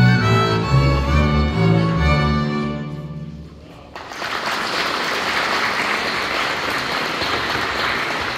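A Polish highland folk string band, with fiddles and double basses, ends a tune, fading out about three and a half seconds in. About half a second later the audience breaks into applause that keeps going steadily.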